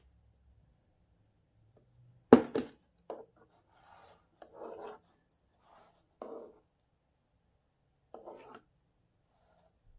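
A metal spoon spreading and scraping soft cream over a cake layer in a springform tin, in several short scraping strokes, with one sharp knock a little over two seconds in.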